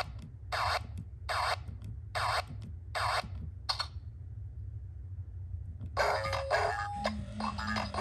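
Hasbro 2005 I-Dog Pup robot toy making a run of short scratchy bursts, about one every 0.8 s, for the first four seconds. After a short pause it starts playing an electronic hip-hop tune through its small speaker, about six seconds in.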